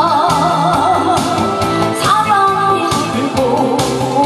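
A woman singing into a microphone, holding long notes with a wavering vibrato, over amplified instrumental backing with a steady drum beat.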